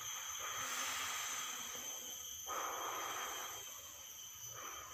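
A person blowing on a cluster of honey bees: three long, breathy puffs of air, the last starting near the end, used in place of smoke to drive the bees off the comb.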